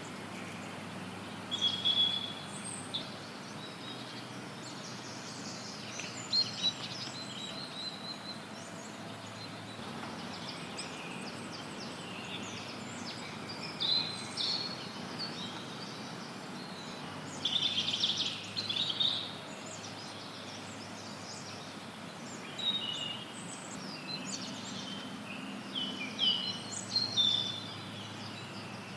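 Forest birds chirping and singing in short bursts every few seconds over a steady hiss of white noise.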